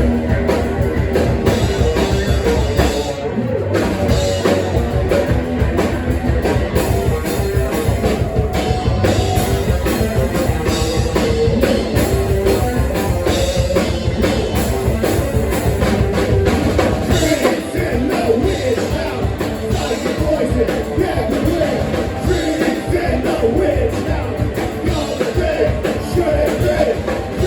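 Rock band playing live: drum kit and amplified instruments with singing, played at full volume.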